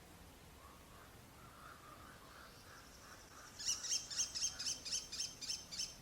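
American kestrel calling: a loud, rapid series of shrill high notes, three or four a second, starting about three and a half seconds in, after a few seconds of faint lower chirping.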